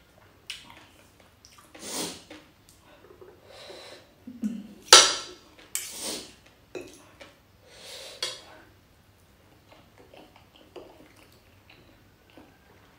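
Fork and spoon clinking and scraping against a ceramic plate of noodles and eggs, with a few short, louder eating sounds from the mouth, the loudest about five seconds in.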